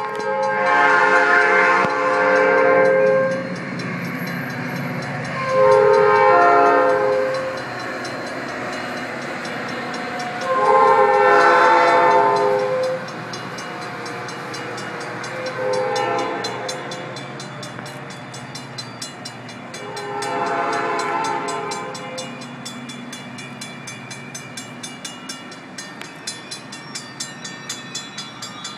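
Metra commuter train's diesel locomotive horn blowing five blasts at a grade crossing, the fourth one short, over the steady rumble of the passing train. In the last seconds its wheels click regularly over the rail joints.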